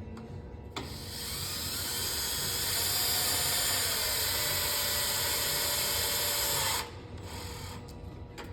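Cordless drill driving a small Robertson screw into aluminum, running steadily for about six seconds and then cutting off, followed by a short second burst.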